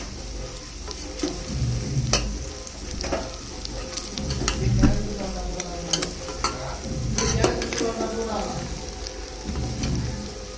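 Chicken frying in a pan, sizzling steadily while it is stirred, with occasional sharp clicks.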